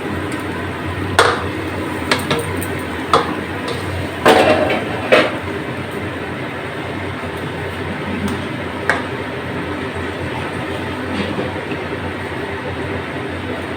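Marinated masala gravy sizzling steadily in hot oil in a pan, with a metal spatula knocking against the pan several times as it is stirred, mostly in the first few seconds.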